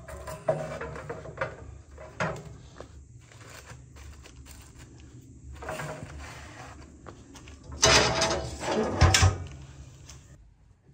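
Kitchen handling sounds: irregular rattling and scraping with several sharp knocks, loudest in a cluster about eight to nine seconds in.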